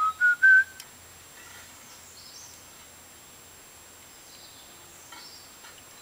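Three short, clear whistled notes, each a step higher than the last, the third the loudest, all within the first second. Then faint outdoor background with a few faint high chirps.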